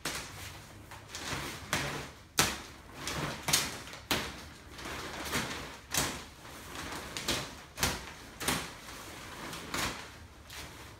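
Thick plastic sheeting crinkling and rustling as it is cut and pulled off a kayak, with sharp crackles about once a second.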